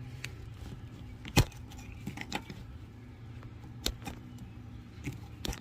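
A few separate metallic clinks and knocks from metal tools being handled, the sharpest about a second and a half in.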